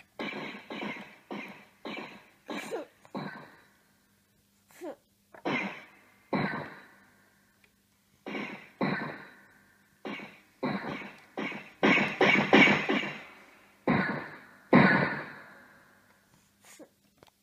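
Toddler banging clusters of keys on a Yamaha electronic keyboard: irregular struck notes and chords, each dying away, with a short pause about four seconds in and a quick run of strikes around twelve seconds.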